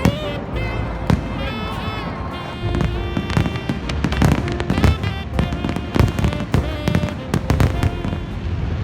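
Fireworks display: many shell bursts and crackles going off in quick succession, getting denser and louder a few seconds in, with music playing alongside.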